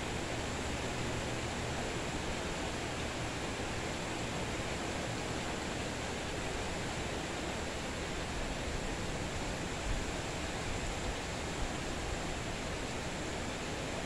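Steady rain falling: an even, unbroken hiss, with no single drops standing out.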